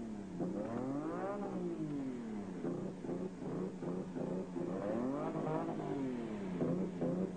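Lotus Formula One car's Renault turbo V6 engine revved repeatedly in the pits, its pitch rising and falling about every second and a half. The engine has an internal failure and is running on only three of its six cylinders.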